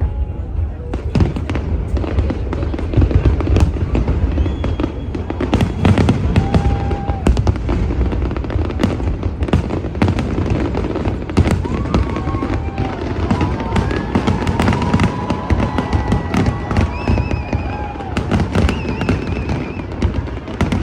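Fireworks display going off continuously: dense bangs and crackling over a deep rumble, with high whistles sounding over it from about six seconds in.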